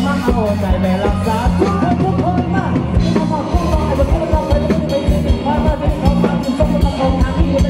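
Live rock band playing loudly through a PA: electric guitar and drum kit with a steady beat, and a male singer.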